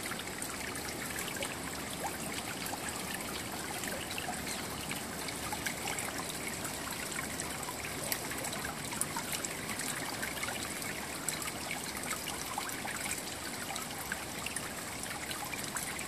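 Steady trickling, splashing running water, a continuous hiss full of fine crackles that keeps an even level.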